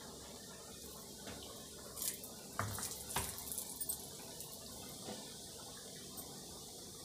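Khasta tikiya dough discs frying in hot oil in a kadhai: a steady sizzle, with a cluster of sharp crackles and pops about two to four seconds in.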